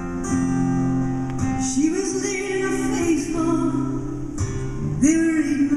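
Live acoustic folk ensemble: strummed acoustic guitars under a sung melody, with long held, wavering notes that come in about two seconds in and again near the end.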